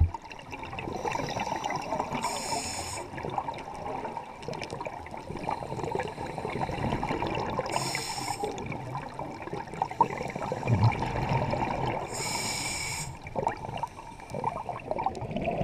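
Underwater sound of scuba breathing through a regulator: three short hissing breaths about five seconds apart over a steady low rush of water and bubbles.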